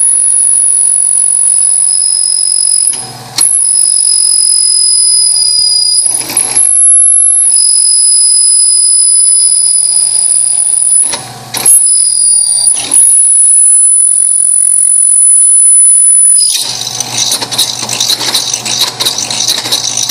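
Carbide-tipped Artu drill bit in a drill press at about 3100 RPM cutting through hardened O1 tool steel (61–62 HRC): a loud, steady, high-pitched squeal with a second, lower tone, broken by short gaps about four times. Near the end the squeal stops and gives way to a rougher, scratchy clatter.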